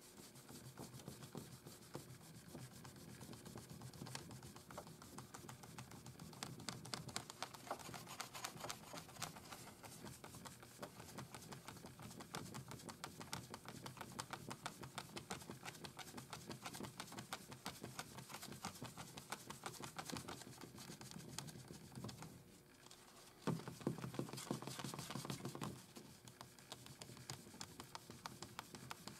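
Paper towel rubbing plastic polish into a wooden pinball playfield: a quiet, continuous scrubbing, louder for a couple of seconds near the end.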